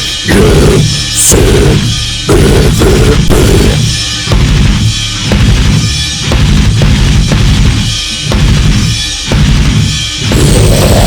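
Heavy metal music in an instrumental passage: a drum kit pounds rapid bass drum strokes with snare hits in a stop-start rhythm, breaking off briefly about once a second.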